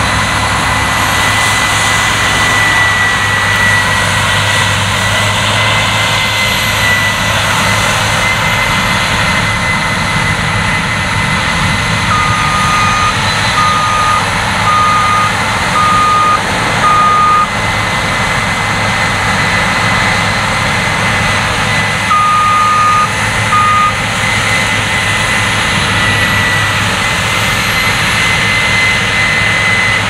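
Case IH 9120 Axial-Flow combine harvester working through standing wheat: a steady, loud engine and threshing noise with a high whine held throughout. About twelve seconds in, a short electronic beep sounds five times, evenly spaced, and twice more later.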